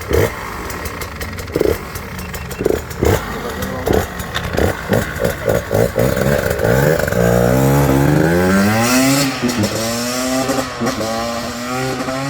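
Husqvarna TE150i two-stroke single-cylinder engine giving a string of short throttle blips, then revving up as the bike pulls away. Its pitch climbs, drops back twice at the gear changes, and climbs again.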